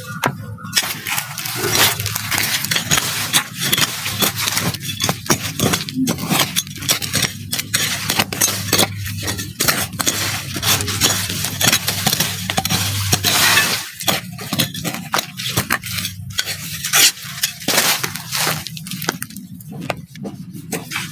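Digging in hard, crumbly soil around a taro corm: many short scrapes and crunches of dirt being broken up and pulled away.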